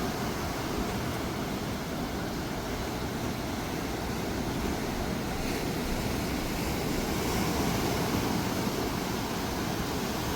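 Steady rushing outdoor noise with no distinct event standing out.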